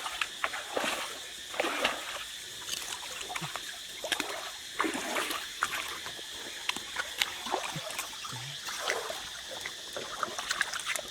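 Shallow river water splashing and sloshing in short irregular bursts, as someone wades and gropes through it, over a steady faint high-pitched tone.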